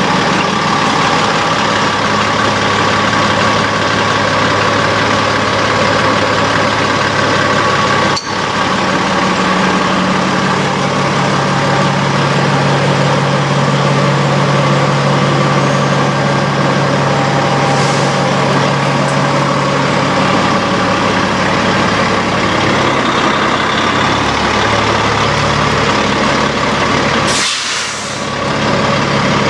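Heavy diesel semi-truck engine idling steadily, with a steady whine above the engine note. There is a sharp click about eight seconds in and a short burst of hissing air near the end, like an air brake release.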